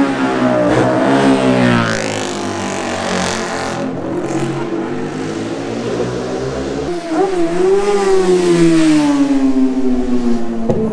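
Racing motorcycle engines at full throttle on a closed-road course. The first engine note falls away over the first few seconds as a bike goes by. About seven seconds in, a new note starts abruptly, rises, then falls as another bike accelerates through.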